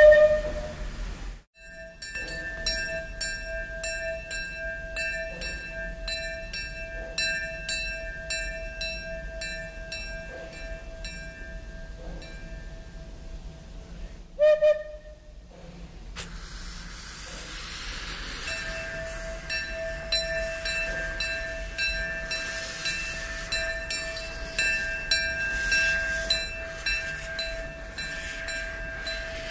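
Steam locomotive bell ringing steadily, about two strikes a second, in two stretches. A loud steam-whistle blast ends about a second in and a second short blast comes midway. Steam hisses under the bell in the second half.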